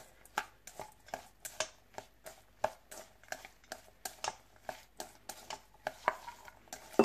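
Chopsticks tossing a dressed salad of shredded mango and carrot in a stainless steel bowl: a run of light clicks and taps of the sticks against the metal, a few a second, with one louder knock at the very end.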